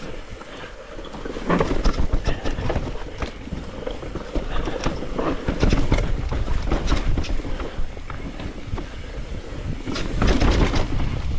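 Mountain bike riding fast down a rough dirt and rock trail: tyres crunching over the ground and the bike rattling and clattering over bumps, under a steady low rumble of wind on the microphone. It grows louder about a second and a half in, and again near the end.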